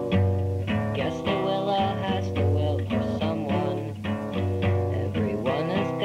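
Music: a song played on guitar, with plucked notes over a steady low bass.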